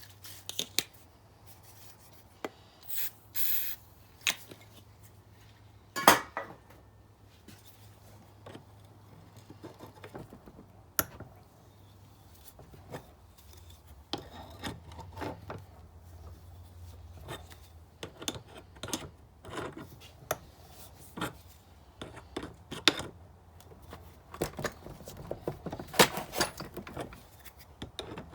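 Metal hand tools clinking, knocking and scraping in irregular bursts while being worked on a stripped brake caliper bolt, with a sharp knock about six seconds in.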